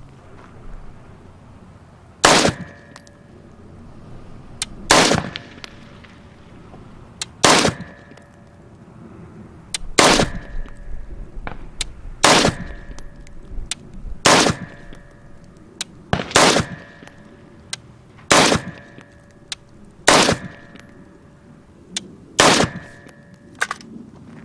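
AR-15 rifle firing 5.56 NATO rounds: ten single shots at a steady pace of about one every two to two and a half seconds. A faint ringing tone lingers briefly after most shots.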